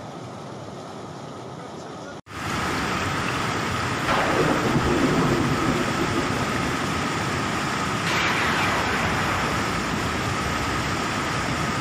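Fast-flowing muddy floodwater rushing past, a steady loud noise of churning water. Quieter for the first two seconds, then louder after a sudden break.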